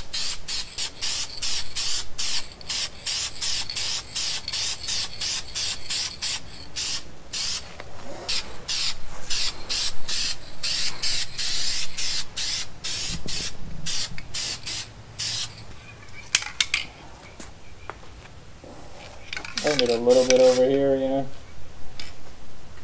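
Aerosol rattle can of spray paint being sprayed in rapid short bursts, each a quick hiss, stopping about two-thirds of the way through. A few clicks and a brief voice follow near the end.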